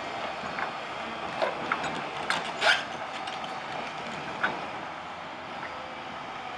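New Holland E215 crawler excavator driving off a lowbed trailer: its engine runs steadily under several sharp metallic clanks from the steel tracks, the loudest about two and a half seconds in.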